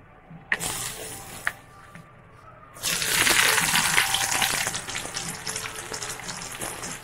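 Pale baby potatoes slid from a ladle into hot oil in a kadai: a couple of clicks and a short sizzle about half a second in, then from about three seconds in a loud burst of sizzling as the batch hits the oil, settling into steady deep-frying.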